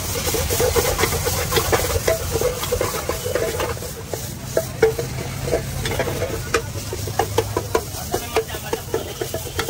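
A metal ladle scraping and clacking against a wok in quick, irregular strokes as vegetables and noodles are stir-fried, over a steady sizzle.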